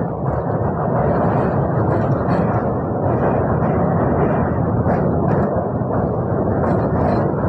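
Train crossing a steel truss bridge: a loud, steady rumble of the wheels on the rails, with a few faint clacks now and then.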